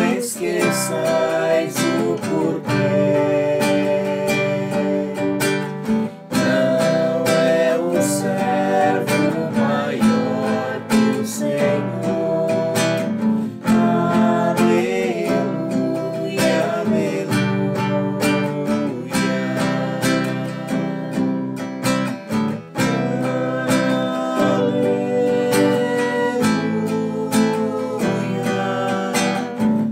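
Acoustic guitar strummed in a ballad pattern, several downstrokes then upstrokes, through the chords C, G, Am, Em, F and back to C and G.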